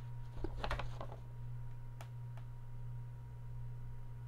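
Two faint computer mouse clicks about half a second apart, over a steady low electrical hum, with a brief rustle just after the start.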